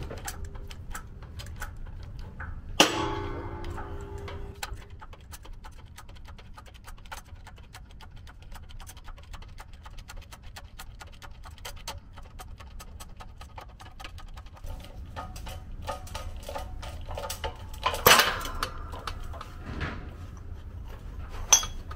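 Hydraulic shop press pushing the front wheel hub out of the bearing in a Toyota 4Runner steering knuckle. A fast, even ticking runs throughout. A sharp metallic bang with ringing comes about three seconds in, and another loud metallic clank with ringing near eighteen seconds.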